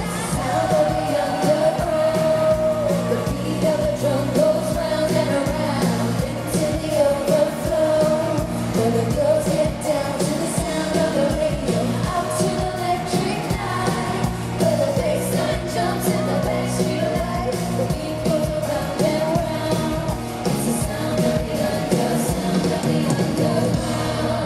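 Female pop group singing live over an amplified band in an arena, as heard from the audience.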